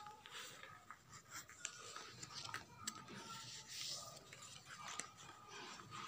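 Faint rustling and rubbing of a sheet of notebook paper being folded and creased by hand against a notebook cover, with a few light ticks.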